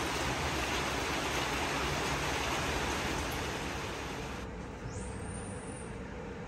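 A steady rushing noise that eases a little about two-thirds through, with a faint high rising whistle near the end.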